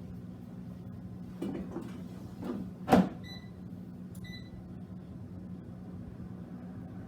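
Air fryer basket drawer slid shut with a loud clunk about three seconds in, after a couple of lighter knocks, followed by two short electronic beeps from the air fryer. A steady low hum runs underneath.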